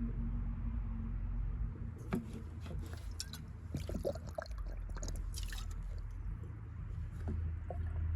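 Fuel system cleaner glugging and splashing as it is poured from its can into a car's fuel filler, with irregular gurgles and drips from about two seconds in, over a steady low hum.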